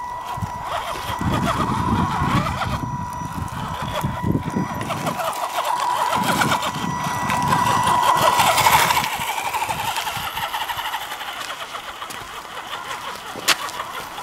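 Axial SCX10 radio-controlled rock crawler's electric motor and gears whining steadily as it crawls over rock, with tyres scrabbling and stones crunching underneath. The motor noise swells about eight to nine seconds in, and there is a single sharp click near the end.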